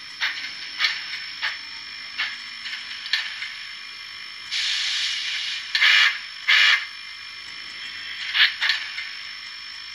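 Digital steam sound from the Tsunami sound decoder in an HO-scale Santa Fe 4-6-4 'Blue Goose', played through the model's small speaker: slow chuffs about every half second as the engine creeps along, a steam hiss a little before halfway, then two loud short bursts.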